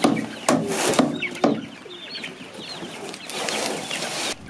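Young chicks peeping constantly inside a plastic storage tote, while the tote knocks and scrapes several times in the first second and a half and rustles again about three seconds in as it is slid across the pickup bed and tailgate.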